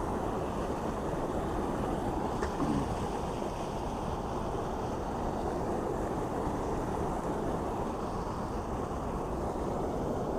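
Steady rushing of water pouring over a mill dam waterfall.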